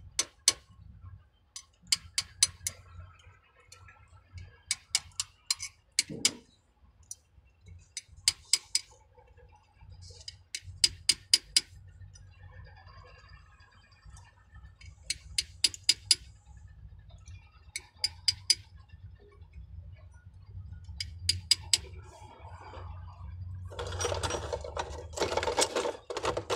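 Light metal-on-metal taps seating a new oil seal into a Mercedes-Benz Actros steering gear box, struck gently in quick bursts of three to five with pauses between, so that the seal goes in square rather than crooked.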